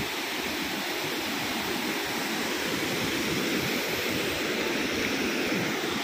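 Waterfall water rushing, a steady, unbroken noise of falling and flowing water.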